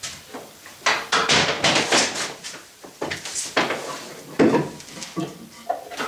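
Irregular knocks and clatter of a power cord and plug being handled against the plastic housing of a shop vacuum while it is being plugged in; the vacuum motor is not running.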